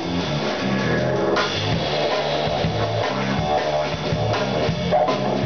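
Live band groove on drum kit, electric guitar and bass guitar, the bass stepping from note to note, with a didgeridoo played into a microphone over it.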